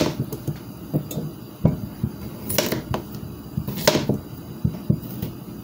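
Kitchen knife cutting raw potatoes in half on a cutting board, the blade knocking sharply on the board a few times.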